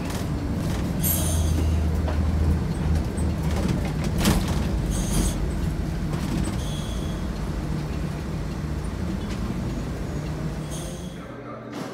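Inside a moving city bus: the engine's steady low rumble with road noise. A few short high-pitched sounds come now and then, and a brief rush of noise about four seconds in.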